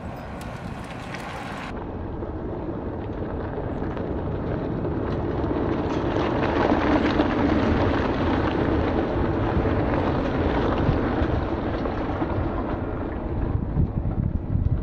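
Open tube-frame kit car driving past close by, its engine and tyres getting louder to a peak about seven seconds in, then fading as it pulls away.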